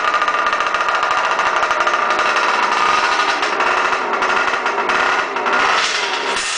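The right-hand two-stroke engine of a 1968 Mini SKE 250 kart running, a loud, rapid, even stream of firing pulses that smokes blue from its expansion exhaust. Its revs waver in the last couple of seconds.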